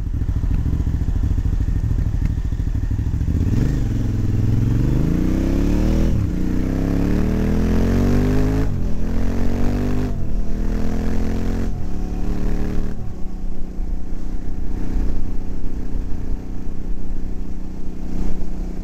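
KTM 950 V-twin motorcycle engine running at low revs, then accelerating hard from about three seconds in. Its pitch climbs and drops back at each of about five upshifts, then settles to a steady cruise.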